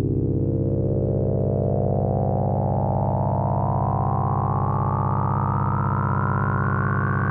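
Synthesizer drone: a steady low chord with a tone gliding slowly upward in pitch.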